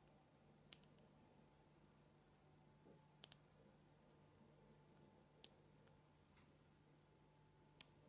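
Small neodymium magnet balls snapping onto a cluster of magnet balls one at a time, each with a sharp metallic click. There are four clicks, some with a quick smaller second click as the ball settles, and the last one near the end is the loudest.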